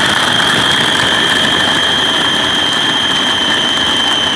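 Food processor motor running steadily, its blade mincing roasted garlic cloves in olive oil, with a steady high whine over the whirring.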